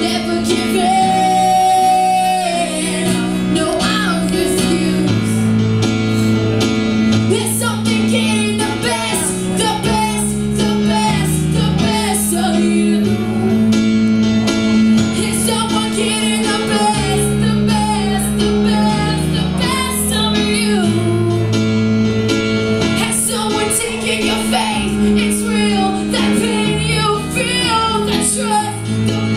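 A song with a woman singing over guitar and a sustained bass line that shifts every second or two.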